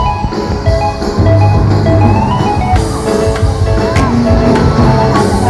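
Dance music with a drum beat, a steady bass and a melody line.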